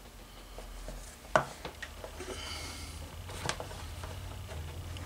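Hand-stitching of a leather holster, needle and thread being worked through the leather. A sharp click comes about a second and a half in and a smaller one near three and a half seconds, with a faint rasp of thread being drawn through between them, over a low steady hum.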